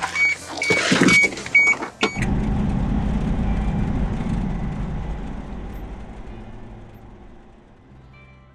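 A car's chime beeps about four times with some clatter. About two seconds in, a car door shuts with a sharp knock. A low rumble from the car follows and slowly fades out.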